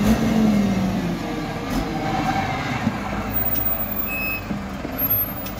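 Hyundai motor grader's diesel engine running under load as it reverses, towing a mired dump truck out of mud. A short high beep sounds about four seconds in.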